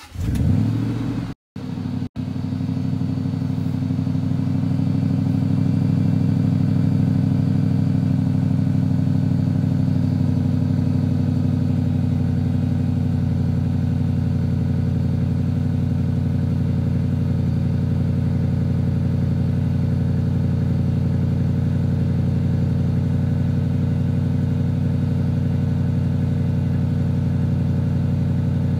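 2008 Range Rover Sport Supercharged's supercharged V8 starting from cold through its stock exhaust: it catches with a brief rev flare in the first second, then settles into a steady cold idle that steps down slightly about ten seconds in.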